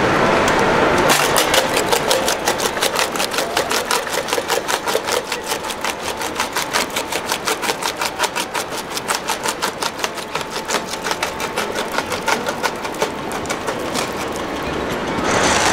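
Small electric-motor-driven model jaw crusher crushing coal: a fast, even clatter of knocks from the jaw that starts about a second in and dies away near the end.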